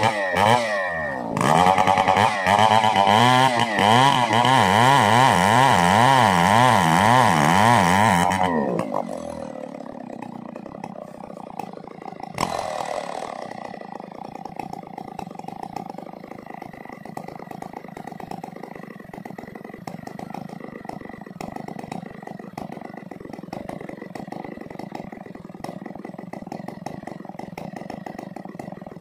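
Chainsaw engine running at high speed, its pitch rising and falling over and over. About eight or nine seconds in it drops to a steady idle, with one short blip of the throttle a few seconds later.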